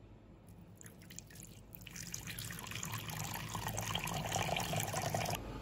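A thin stream of clear liquid pouring into a bowl of thick sauce, trickling and bubbling. It grows louder from about two seconds in and stops sharply just before the end.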